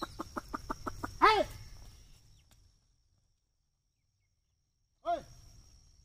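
A ploughman's voice calling to his pair of bullocks: a quick run of about eight short clucks, then a loud call that rises and falls, and a shorter falling call near the end.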